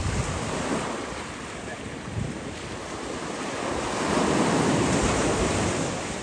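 Sea waves washing and breaking, with wind buffeting the microphone; the surge grows louder about four seconds in and eases again near the end.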